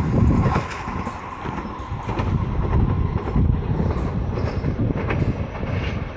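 Trenitalia Minuetto regional train running through the station and pulling away: a low rumble of wheels on rail with scattered clicks, dropping in level about a second in as it recedes.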